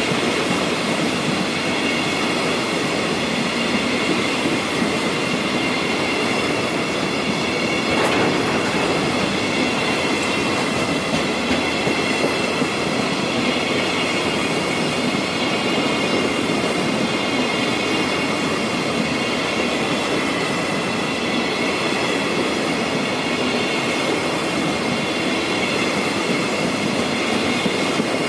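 Coal freight train's hopper wagons rolling steadily past, the wheels clattering over the rails with a continuous high-pitched squeal over the rumble. A single sharp click stands out about a third of the way through.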